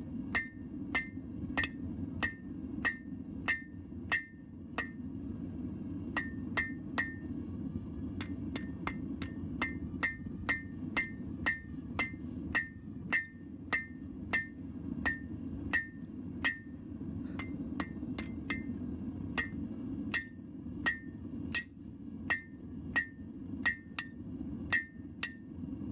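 Blacksmith's hammer striking hot steel on an anvil in a steady rhythm of about one to two ringing blows a second, with a short break about five seconds in. Some strokes are light taps letting the hammer rebound off the anvil face. A steady low roar of a propane forge burner runs underneath.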